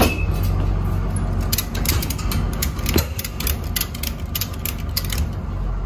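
Truck cab while driving: steady low engine and road rumble, with a run of quick, irregular clicking from about a second and a half in until near the end.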